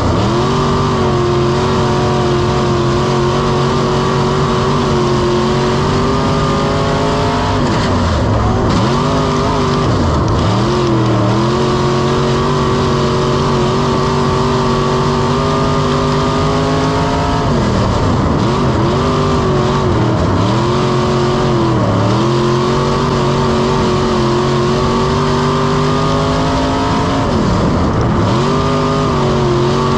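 V8 engine of an IMCA dirt-track race car, heard from the cockpit at speed on the oval. It runs at a steady pitch down the straights, then drops and climbs back several times as the driver lifts off and gets back on the throttle through the turns.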